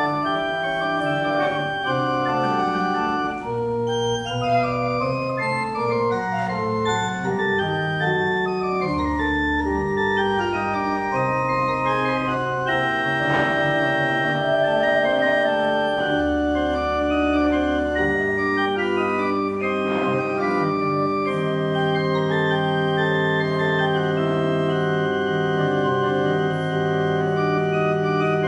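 Pipe organ playing a flowing piece of many moving notes over occasional deep bass notes; about two-thirds of the way through it settles into long held chords.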